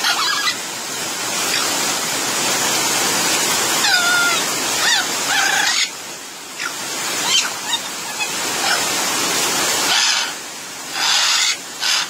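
Heavy rain hissing steadily while parrots call in it: a few curving squawks about four to six seconds in, and harsh, rasping squawks near the end.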